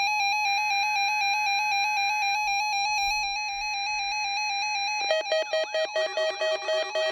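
Electronic weather-radio warning alarm: a steady, buzzy single-pitched tone for about five seconds, then a pulsing pattern of warbling tones repeating two to three times a second.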